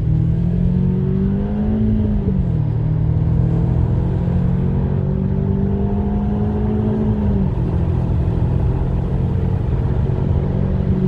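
Audi A4 1.8T with a multitronic CVT gearbox whining. Over the steady hum of the turbocharged four-cylinder engine, a tone slowly rises in pitch and then drops away, twice: about two seconds in and again about seven seconds in.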